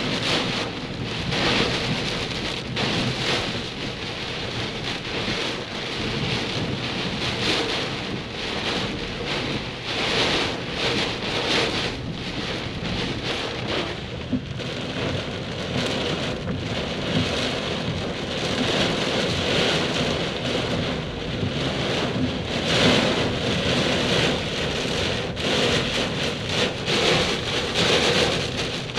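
Heavy rain falling steadily in a thunderstorm, pattering densely, with rumbling thunder underneath.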